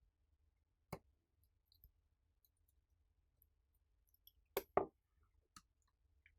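A few small sharp clicks against near silence: a tiny Phillips screwdriver and screw tapping on the iPhone 5c's internal metal plate as the last screw is driven in. One click comes about a second in and a louder close pair near the end.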